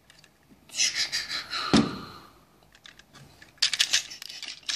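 Handling noise from a plastic and die-cast toy robot being turned over in the hands: a rustling scrape about a second in with one sharp thunk, then a quick run of small clicks and rattles near the end.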